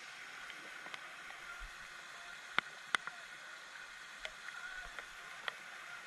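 Steady outdoor hiss by the water, with a few sharp ticks and clicks scattered through it, the two loudest close together just after the middle.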